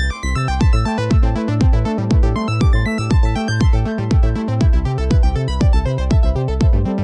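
Electronic dance music with a steady kick drum about twice a second, coming in about half a second in, under layered synthesizer tones.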